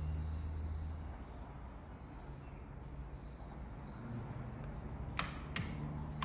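Faint, steady background noise with a low hum early on, broken by two sharp clicks about half a second apart near the end.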